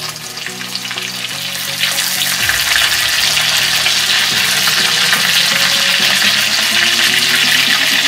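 Chopped garlic and curry leaves sizzling in hot oil in a steel kadhai, the tempering (tadka) for dal. The sizzle grows louder about two seconds in and then holds steady.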